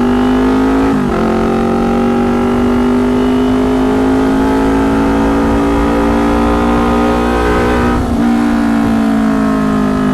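2019 Kawasaki Ninja 250's parallel-twin engine through a loud aftermarket tin-can exhaust, accelerating under way. The engine note climbs slowly and drops at an upshift about a second in and again about eight seconds in.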